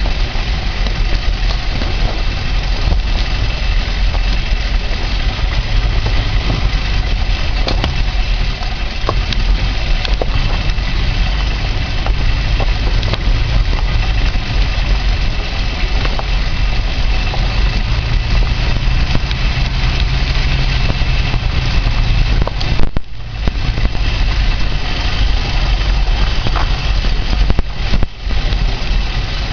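Zastava Yugo 45's small four-cylinder engine running steadily as the car drives over a rough dirt track, with scattered knocks and rattles from the body and suspension. The sound dips briefly twice near the end.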